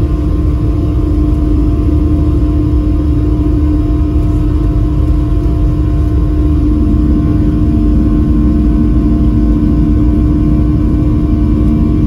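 Boeing 737-700's CFM56-7B turbofan engines at takeoff thrust, heard inside the cabin during the takeoff roll: a loud, steady engine drone with a steady hum over the low rumble of the wheels on the runway. A second steady tone joins about halfway through.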